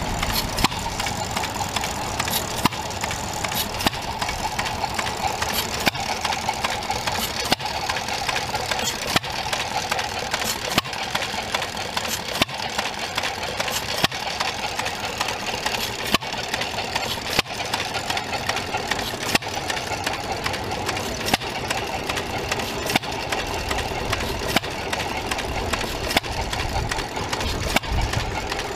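Antique hit-and-miss stationary engines running, each sharp pop a firing stroke, spaced irregularly about one to two seconds apart over a steady mechanical clatter. The engines fire only when the governor lets them and coast on their flywheels between fires.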